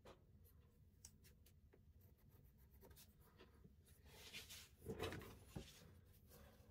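Faint desk handling of a ruler on a cardboard template: a few light clicks, then a brief scraping rustle about four and a half seconds in as the ruler is turned and slid flat across the cardboard.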